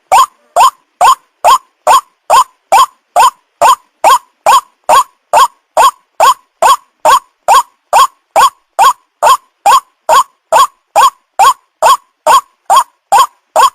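White-breasted waterhen (ruak-ruak) call played as a bird lure: short harsh croaking notes repeated at an even pace, a little over two a second, the same note over and over like a loop. It is a lure call meant to draw in young waterhens.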